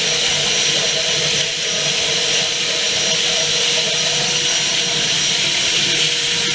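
Wet/dry shop vacuum motor running steadily at full speed, a steady whine over a rush of air. Its exhaust is being used as a blower, forcing air through a hose into a pool sand filter to agitate the filter media.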